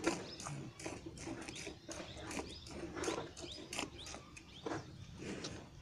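Hand milking of a cow into a steel bucket: regular squirts of milk from the teats striking the froth in the pail, about two to three a second.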